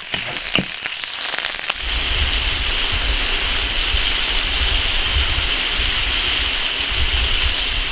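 Wok of braised cured pork and potatoes sizzling and bubbling steadily as the sauce cooks down, after a few clinks of a metal ladle against the iron wok in the first couple of seconds.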